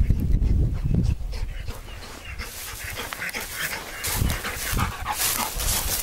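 Hunting hound baying during the chase on a hare. Wind buffets the microphone in the first second or so, and rustling steps through dry grass follow toward the end.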